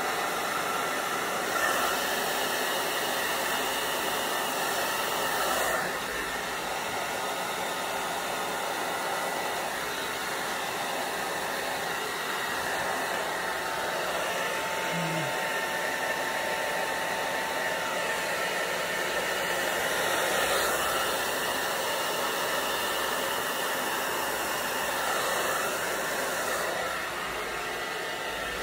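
Hair dryer running steadily, blowing across wet acrylic paint to push a bloom out. It swells briefly in loudness a few times as it moves.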